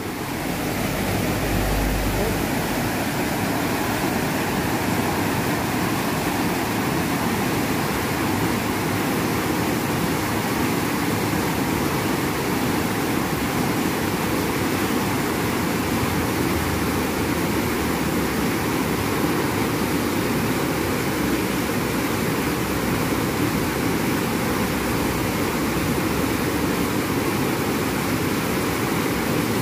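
Fast, shallow river water rushing and foaming over broken white water, a steady, even rush with no let-up.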